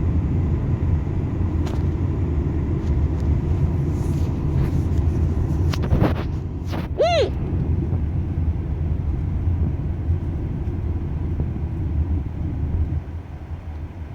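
Steady low road rumble inside a moving car. About seven seconds in there is a brief, high-pitched vocal sound that rises and falls.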